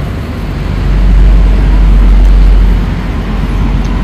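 A loud low rumble that swells about a second in and eases off near three seconds.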